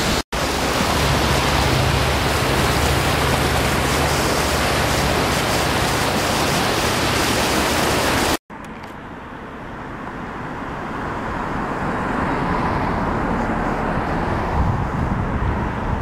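Close-up waterfall: a loud, steady rush of falling water with a low rumble beneath it. After about eight seconds a sudden cut brings a quieter rush of a river running over rapids, which grows louder toward the end.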